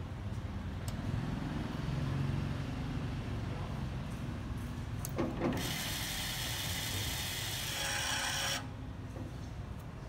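Electric linear-actuator gate bolt: a click about halfway through, then its small motor whirring steadily for about three seconds as it drives the bolt, stopping abruptly.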